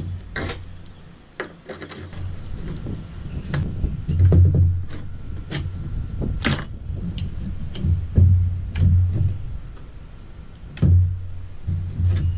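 Scattered metallic clicks and knocks of bolts, nuts and washers being handled and fitted to a Taco outrigger mount, over a low rumble that swells and fades several times.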